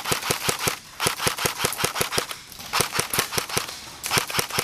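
Airsoft gun firing in four bursts of sharp, evenly spaced shots, about seven a second, with brief pauses between the bursts.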